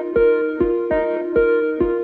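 Background music: a melody of plucked notes over a steady low beat about twice a second.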